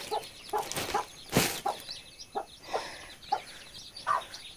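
Mother hen clucking softly and repeatedly to her brood, a short cluck every half second or so, with the chicks' faint high peeping over it. A brief burst of noise about a second and a half in.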